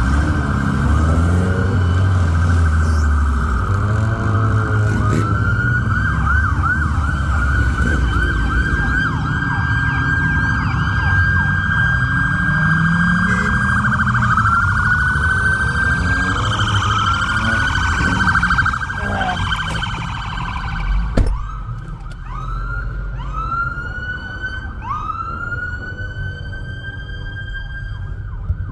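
Emergency-vehicle sirens sounding, several overlapping sweeps at once over a low engine rumble. After a sharp knock about two-thirds of the way through, one siren carries on in short rising whoops about once a second.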